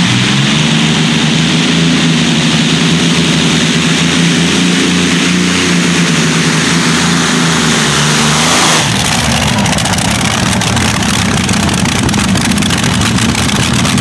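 A pulling tractor's engine running flat out under load, holding a steady high note. About nine seconds in the note drops away and the engine runs on rough and rattling at lower revs.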